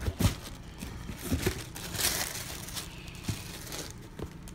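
A cardboard sneaker box being handled and a pair of Yeezy Boost 350 V2 sneakers pulled out of it, with paper rustling and crinkling and a few light knocks against the box. The rustling is loudest about two seconds in.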